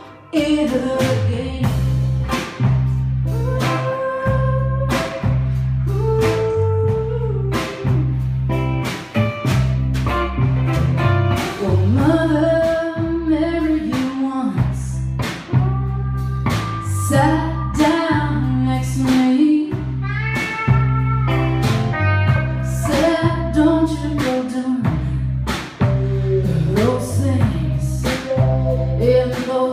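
Live rock band playing a song: a woman sings the lead over electric guitars, bass guitar and a drum kit.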